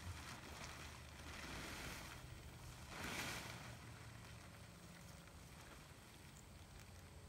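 Faint rustling of a large plastic tarp being dragged and flapped out over grass, in two swells of noise, the louder one about three seconds in.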